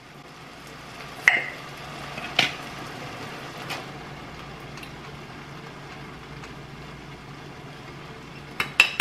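A glass sauce jar's lid clicking as it is twisted open, twice in the first few seconds, over a steady bubbling hiss and low hum of pots cooking on the stove.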